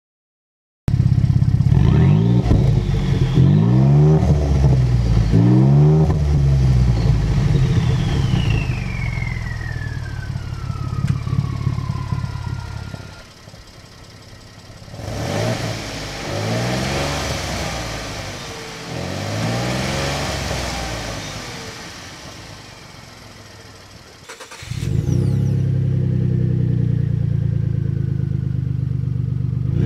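Exhaust of a 2013 Ford F-150 with the 3.5-litre EcoBoost twin-turbo V6 and a resonator delete, revved in repeated blips. It is loud at first, quieter and more muffled through the middle with the electric exhaust cutout closed, then suddenly louder again about 25 seconds in with the cutout open.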